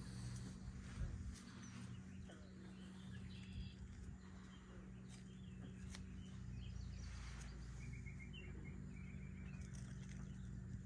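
Faint outdoor ambience with small birds chirping, including a quick run of short repeated notes near the end, over a low rumble and a steady low hum.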